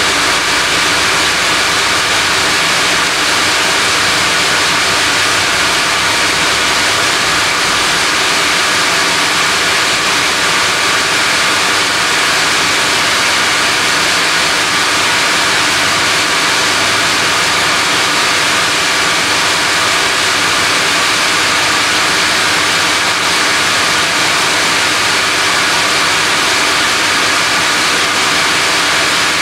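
Sawmill band saw cutting a rain tree (monkey pod) log on its carriage: a steady, loud machine noise with no break.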